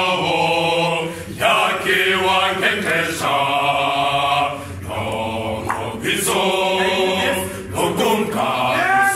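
Adult choir singing unaccompanied in held chords, phrase after phrase, with short breaks between phrases.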